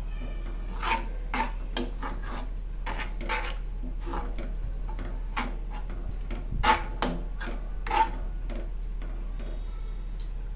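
Steel spoon stirring a thick curry gravy in a nonstick kadai, scraping along the pan and clicking against it in irregular strokes, with a couple of louder knocks late on.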